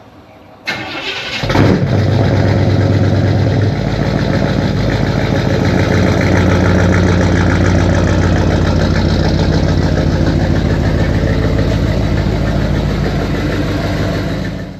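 Classic car engine starting about a second in, revving briefly, then running steadily with an even note until it stops abruptly near the end.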